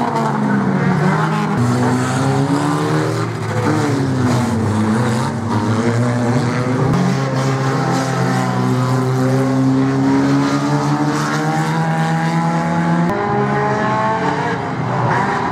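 Several banger-racing cars' engines revving at once as the cars race around an oval track, their pitches rising and falling over one another. The sound changes abruptly about thirteen seconds in.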